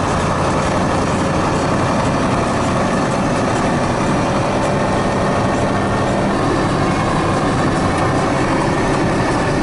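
KamAZ truck's diesel engine running steadily as the truck drives, heard from inside the cab.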